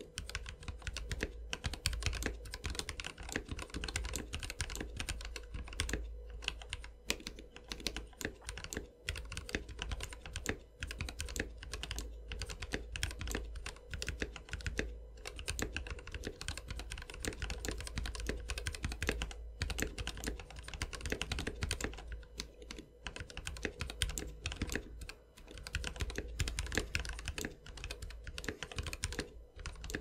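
Fast, steady typing on a mechanical keyboard fitted with XDA-profile Coral Sea keycaps, at about 80 words a minute. It is a continuous run of key clacks with a few short pauses.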